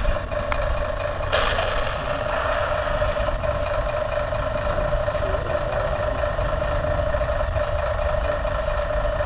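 Radio-controlled model Sherman tank running: a steady, engine-like mechanical drone from the model, which grows a little louder and hissier about a second and a half in.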